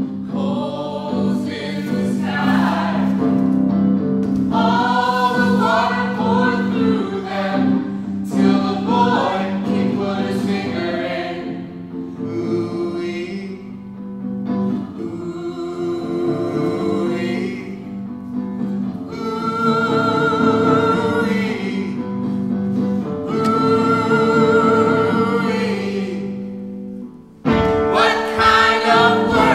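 Several voices singing together in a choir-like style over a held low drone. Near the end the sound drops away briefly, then comes back suddenly louder.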